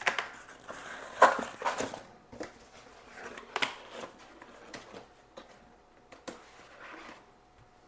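Unboxing of keyboard accessories and packaging: irregular rustling with a string of sharp clicks and taps, the loudest cluster between one and two seconds in.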